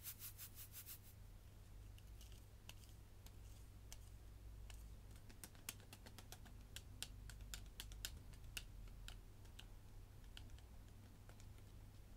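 Faint kitchen sound effects: light clicks and taps of a utensil working brown sugar into dry ingredients in a mixing bowl. A quick run of clicks comes at the start, then scattered taps throughout.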